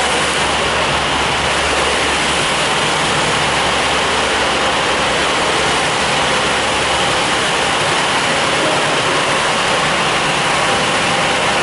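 High-pressure wash wands spraying water onto a semi truck, a loud, steady hiss of spray with no letup.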